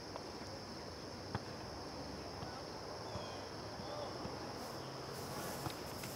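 Insects chirring steadily at a high pitch over a low background rumble, with a few faint clicks.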